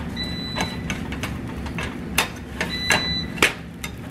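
A plastic spatula clicking and scraping against a small nonstick frying pan in a few sharp knocks. Over a steady low hum, an air fryer beeps twice, about two and a half seconds apart, each beep lasting about half a second: its timer going off.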